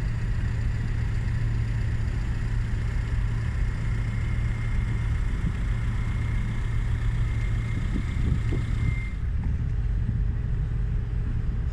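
Steady low rumble of a boat's engine running, with a thin high whine above it that stops about nine seconds in.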